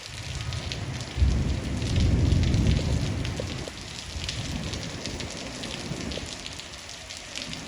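Heavy rain pattering steadily. A loud low rumble starts suddenly about a second in and dies down over the next two seconds.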